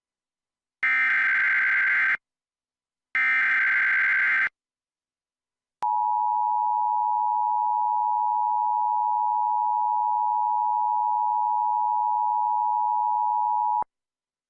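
Emergency Alert System tones: two bursts of SAME header data, each a harsh warbling buzz about a second and a half long with a second's gap between them. After a short pause comes the EAS two-tone attention signal, a steady two-pitched tone held for about eight seconds that cuts off abruptly. Together they announce a National Weather Service tornado warning.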